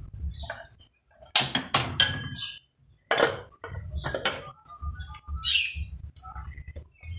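Cookware being handled at the stove: a metal pot and utensils clank sharply four or five times over a few seconds, two of the knocks leaving a brief ringing tone.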